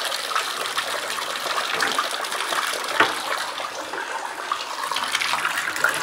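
Water running steadily from a bathtub spout and splashing into the tub near the drain, as the pressure left in the line is bled off after the supply has been shut off. A single short click about halfway through.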